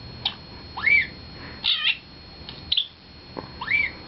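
A run of short, high animal calls: several brief cries, some sweeping up and back down in pitch, about one every second or less.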